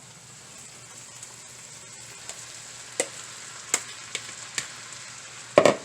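Chicken and vegetables sizzling in oil in a large cooking pot, with a few sharp taps of a utensil against the pot and a louder clatter near the end.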